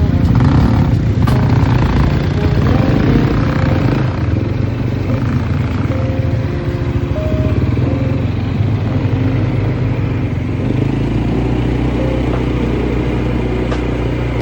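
Motor vehicle engine running steadily, with background music over it.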